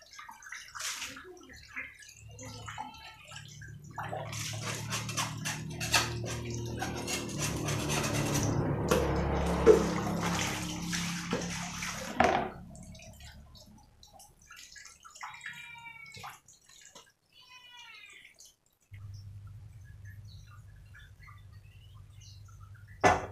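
Water poured from a plastic dipper splashing over dishes into a basin and onto a concrete floor as they are rinsed, for about eight seconds in the middle. A single sharp clatter comes near the end.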